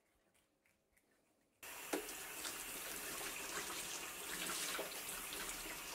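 Kitchen tap running water over a freshly scaled garfish held in the hands, splashing into a plastic washing-up bowl in the sink as the loose scales are rinsed off. The water starts suddenly about one and a half seconds in, after near silence, with a small knock just after.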